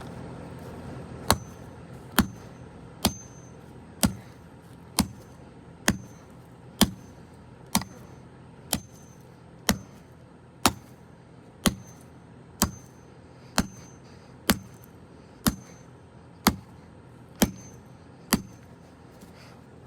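A golf club strikes a Bousnic walkie-talkie again and again: sharp hits about once a second, some nineteen in a row at a steady pace.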